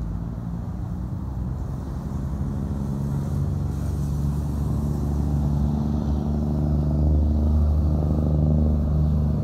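A motor vehicle's engine running steadily close by, with a low hum that grows louder over the last several seconds.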